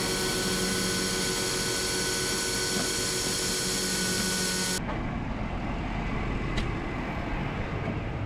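Leaf blower running steadily, a dense rushing noise with a high whine on top. About five seconds in it gives way abruptly to a duller, lower vehicle engine rumble.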